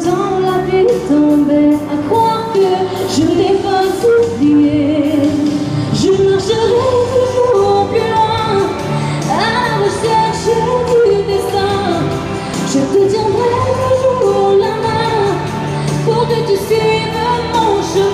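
A woman singing live into a microphone in long melodic lines over pop backing music with a steady beat.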